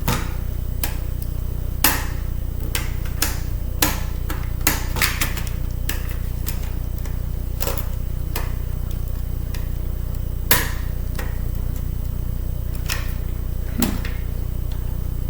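Irregular clicks and taps of a small screwdriver and tools against the metal chassis of a laptop CD drive, working at screws that are too tight to turn, over a steady low hum.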